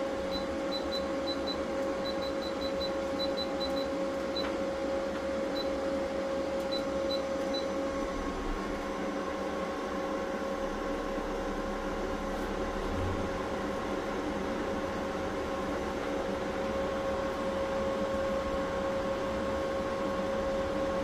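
Window air conditioner's control panel beeping at button presses: a quick string of short high beeps over the first several seconds. Under it, the steady hum of EG4 solar inverters and their cooling fans.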